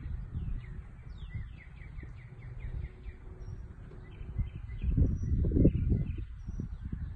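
Songbirds chirping outdoors, with a quick run of descending chirps a little over a second in and a few thin high notes later. Under the birds is an irregular low rumbling noise on the microphone, loudest about five seconds in.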